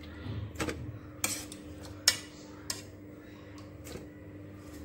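Boiled tomatoes being moved from a pot into a blender jar: about five sharp knocks and clinks of kitchenware, spaced roughly a second apart.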